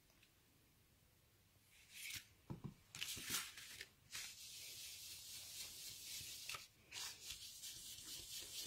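Faint handling rustles of card and paper about two seconds in, then from about four seconds a steady soft brushing as an ink blending brush is rubbed over cardstock to lay down ink.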